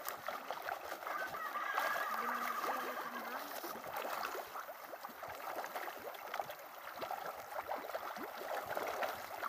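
A crackling patter of many small splashes as tilapia feed at the surface of the pond. A brief call-like sound comes about two seconds in.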